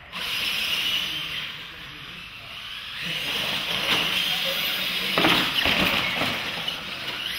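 Radio-controlled monster trucks racing across a concrete floor: a steady hiss of electric motors and tyres that starts as they launch and grows a little louder. A few sharp knocks come about five seconds in as they cross the track's ramps.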